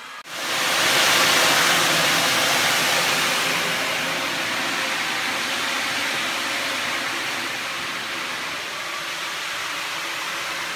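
A steady, loud rush of blown air that starts abruptly about a quarter second in, strongest for the first two seconds and then settling a little.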